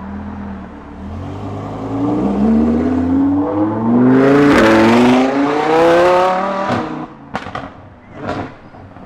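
A car engine accelerating hard, its pitch rising steadily for several seconds with a short break about halfway through, then cutting off suddenly. A few sharp cracks follow near the end.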